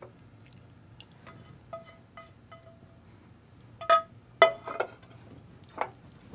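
A glass baking dish clinks and rings as a spatula taps against it, a few light clinks first. About four seconds in come several louder clinking knocks, each ringing at the same pitch, as the dish is handled on the stove.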